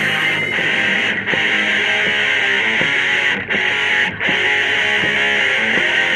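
Guitar-led music played through an American Hi-Fi AHF-1041 two-way coaxial car speaker lying loose without an enclosure. It is loud, with most of its sound in the upper mids and little deep bass.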